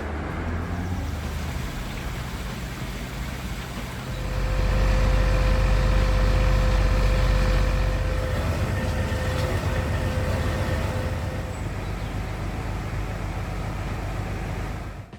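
A heavy vehicle engine running with a deep rumble and faint steady tones. It grows louder about four seconds in, then eases off after about eight seconds.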